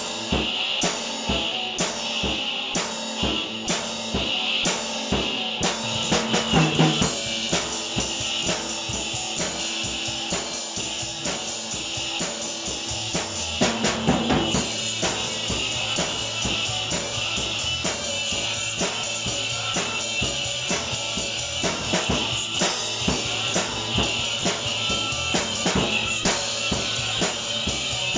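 Acoustic drum kit played in a steady rock beat: cymbals ringing over snare and bass drum hits, with louder accents about 7 and 14 seconds in.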